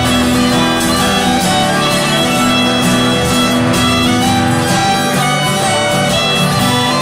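A live Celtic folk band playing an instrumental tune, a fiddle carrying the melody over strummed acoustic guitar.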